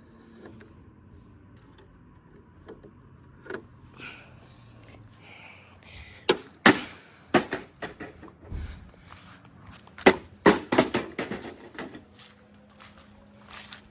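Plastic toy washing machine being smashed apart: a few scattered knocks, then a rapid run of sharp cracks and bangs about halfway through that thins out near the end.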